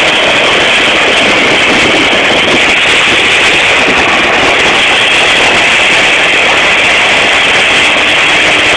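Twin turboprop engines of a skydiving plane running on the ground, a loud, steady roar with a hissing whine.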